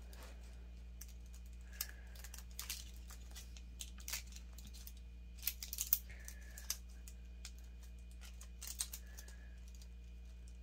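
Small gel polish bottles clinking and knocking together as they are rummaged through by hand: a scattering of light clicks at uneven intervals, some with a short glassy ring.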